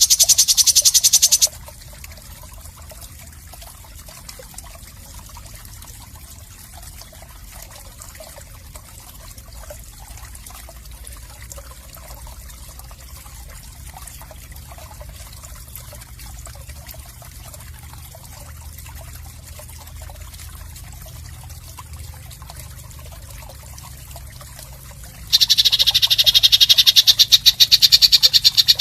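Harsh, rapid, high-pitched rattling animal call of the kind used as training filler for songbirds. It sounds for about a second and a half at the start, breaks off into a long stretch of faint low hum, then comes back loud a few seconds before the end.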